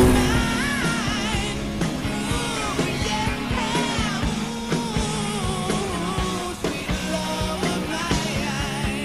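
Rock song with a singing voice over a steady drum beat.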